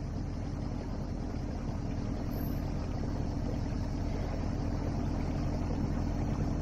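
MacGregor 26X sailboat's outboard motor running steadily as the boat motors along, a low even hum under a steady hiss of wind and water, growing slightly louder.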